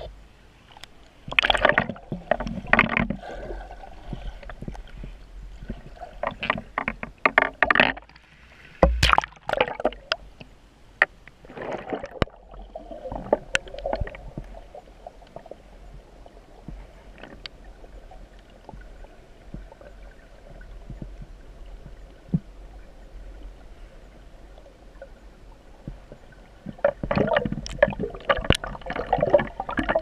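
Underwater sound through a submerged camera's microphone: clusters of bubbling and knocking over a steady low rumble of water under a waterfall. The clusters are busiest in the first half and near the end, with a quieter stretch in the middle.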